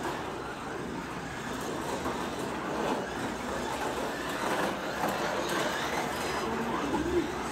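A 1/24-scale Carrera Digital slot car running laps on plastic track: a steady electric-motor whir, with the urethane tyres and guide rumbling along the track slot.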